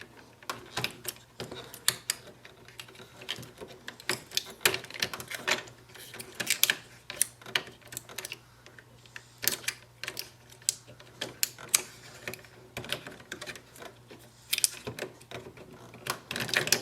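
Irregular sharp clicks and taps of small plastic and metal parts being handled while an Epson EcoTank inkjet printer is taken apart: parts unclipped, screws and plates lifted out.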